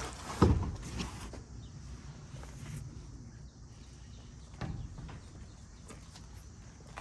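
Items being shifted about in a dumpster: a loud, heavy thump about half a second in, a lighter knock just after, and another thump near the end.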